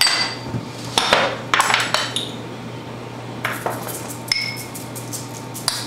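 Metal measuring spoons on a ring clinking against each other and a small container while a quarter teaspoon of sugar is scooped out: a scattering of light, irregular clinks and taps, a few ringing briefly.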